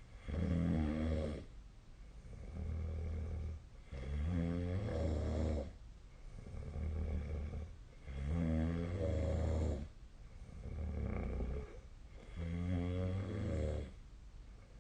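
A person snoring in sleep: four loud snores, about one every four seconds, with quieter breathing sounds between them.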